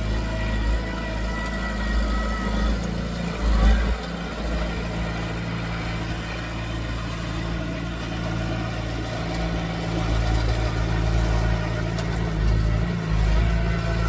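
Diesel engine of earthmoving machinery running steadily, its note shifting briefly about four seconds in.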